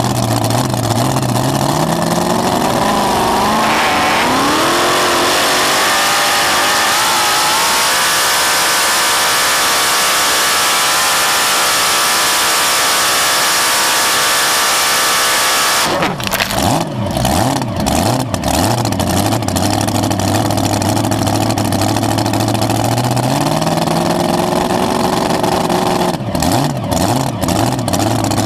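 Supercharged alcohol-burning engine of a blown mini rod pulling tractor: it idles, then revs up over several seconds, its pitch wavering as it climbs, and runs wide open and steady until about sixteen seconds in. There it is abruptly shut off and drops to a choppy idle, with one brief rev up and back down near the end.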